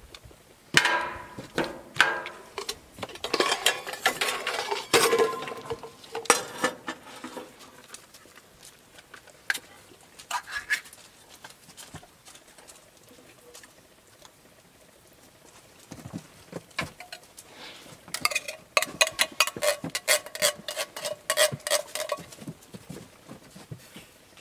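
Metal clattering of a stainless steel saucepan on a camp stove's grate and a spoon against a tin can, some strikes leaving a short ringing tone. Near the end comes a quick run of spoon taps and scrapes as chili is spooned out of the can into the pot.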